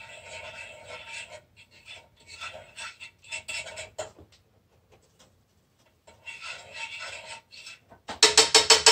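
A utensil scraping and stirring in a frying pan, in strokes with a pause midway. Near the end comes a loud, rapid rattle as a pan is shifted on the electric stove's coil burner.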